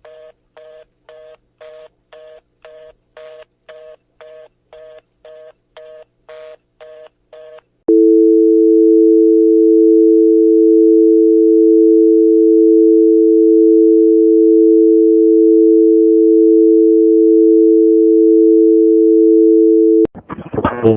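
Telephone fast busy (reorder) signal, a two-tone beep repeating about twice a second, for about eight seconds. Then a loud, steady telephone dial tone, which cuts off suddenly near the end as a loud burst of other sound starts.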